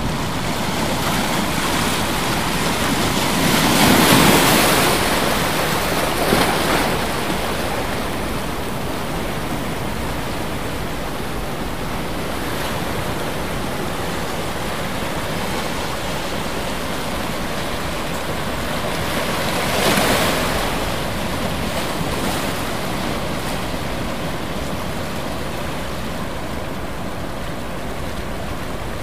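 Ocean surf: a steady rush of water with louder waves swelling and breaking about four seconds in and again around twenty seconds.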